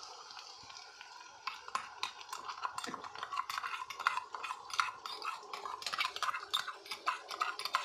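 A metal spoon scraping and clinking against a steel bowl and the rim of an aluminium pan as tomato paste is scraped out into frying onions, with many small clinks starting about a second and a half in. A light sizzle of the hot oil runs underneath.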